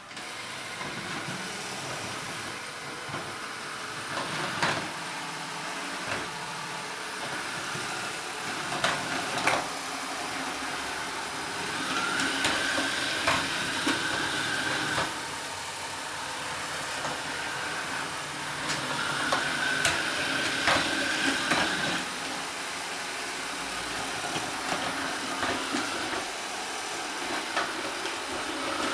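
Samsung Navibot SR8895 robot vacuum running on its default (non-turbo) setting across a tiled floor: a steady whirr of its fan and brushes, with scattered sharp knocks. A higher whine comes in twice for a few seconds.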